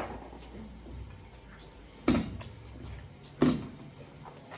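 Soft wheat parotta dough being kneaded by hand, with two dull slaps about a second and a half apart as the oiled dough is pressed and thrown down.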